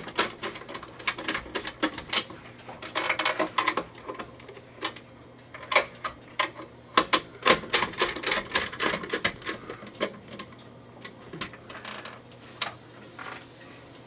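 Hand screwdriver tightening screws into a steel octagon junction box and its box extender: irregular metal clicks and scrapes, thinning out toward the end.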